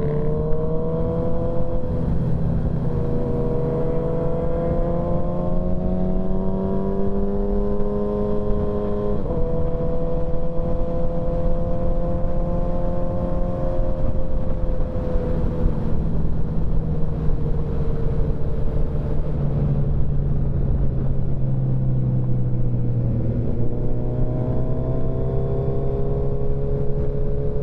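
Motorcycle engine running at cruising speed under a low rumble of wind and road noise, its note drifting gently. The pitch shifts abruptly twice, about a third of the way in and again near the end, as with gear changes.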